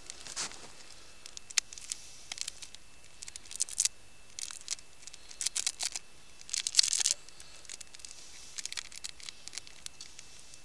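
Crinkling, rustling handling noises with sharp little clicks, in scattered bursts; the loudest about seven seconds in. A faint steady high tone runs underneath.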